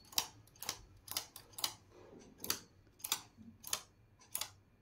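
Knitting machine needles pushed forward by finger one after another along the metal needle bed, each giving a sharp click, a little under two a second.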